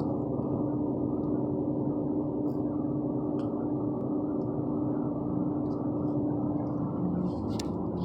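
A 2014 Ford Fusion's gas tank area making a steady humming drone with one held tone that fades near the end, over a low rumble, with a few faint clicks. The owner says the car usually stalls after this noise.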